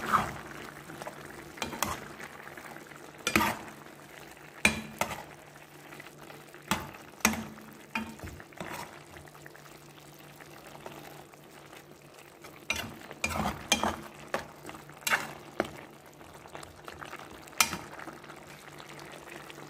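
Chicken adobo simmering and bubbling in its soy-vinegar sauce as it reduces and thickens, while a metal spoon and slotted spatula stir the pieces, clinking and scraping against the pan about a dozen times at uneven intervals.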